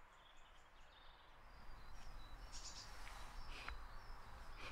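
Faint outdoor background: small birds chirping now and then over a low, steady rumble.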